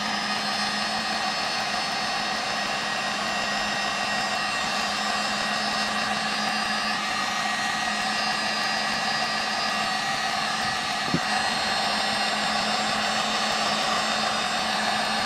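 Electric heat gun running steadily, its fan blowing hot air onto waterproof heat-shrink butt connectors to shrink them onto the wires. Heard as a continuous rush of air over a constant low motor hum.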